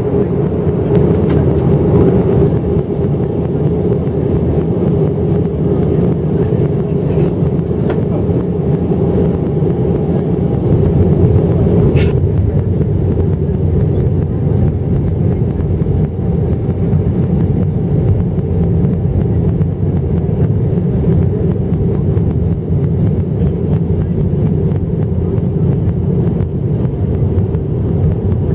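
Steady cabin drone of an Airbus A319 descending on approach, engine and airflow noise heard from a window seat by the wing. A single sharp click about twelve seconds in.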